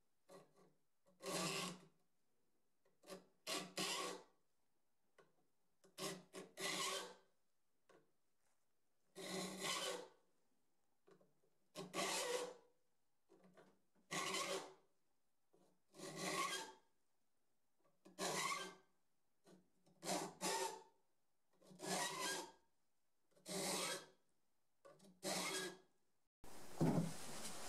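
A saw file rasping across the teeth of an 1880s Richardson Bros. No. 7 rip saw held in a saw vise, sharpening it for rip cutting: about a dozen slow, separate strokes, roughly one every two seconds. Near the end the strokes stop and a steady hiss takes over.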